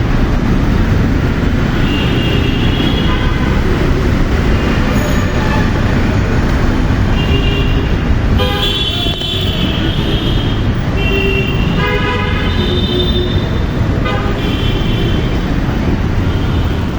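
Busy road traffic running under a steady rumble, with vehicle horns honking again and again, a short toot every second or two at several different pitches.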